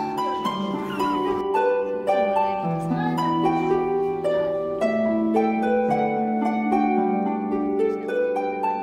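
Background music: a melody of plucked string notes over held lower notes.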